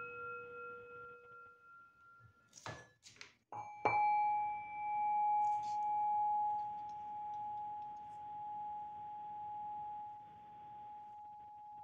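Tibetan singing bowls: the ringing of one bowl fades away, a few small knocks follow, then a second, higher-pitched bowl is struck once with a mallet about four seconds in and rings with one long tone that swells and fades slowly in pulses as it dies away.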